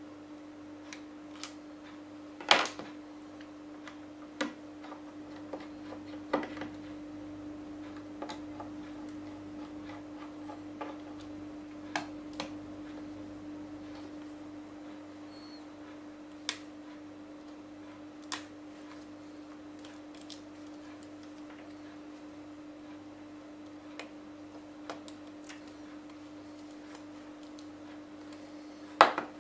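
Scattered sharp clicks and taps of tweezers and a spudger against a disassembled tablet's plastic, metal and flex-cable parts, a few seconds apart, the loudest about two and a half seconds in and just before the end. A steady hum runs underneath.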